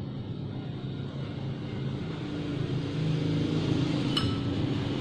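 Steady low engine rumble of a passing vehicle that swells about halfway through. About four seconds in, a metal spoon clinks once against a ceramic bowl with a short ring.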